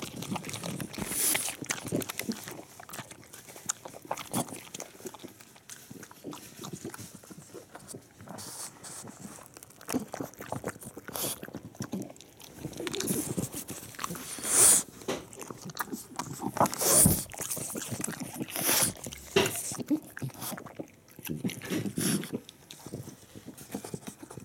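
A French bulldog at close range, nosing and snuffling about a mat, with irregular short crunches and clicks as it bites and chews Chinese cabbage.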